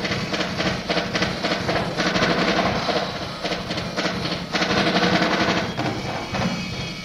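Drum solo on a Tama drum kit and Remo rototoms: a dense run of fast strokes, heard through a live boom box cassette recording.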